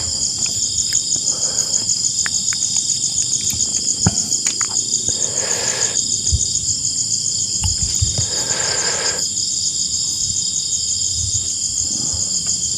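Night chorus of crickets and other insects: a dense, steady, rapidly pulsing high-pitched trilling, very noisy. Two short, lower rasping calls stand out about five and eight seconds in.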